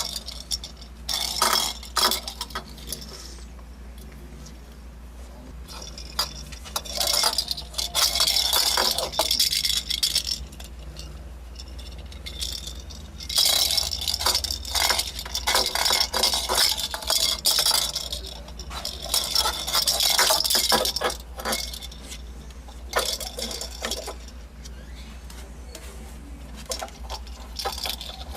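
Irregular clinking and rattling of small hard objects, in bursts of quick clicks with quieter gaps between them, over a steady low hum.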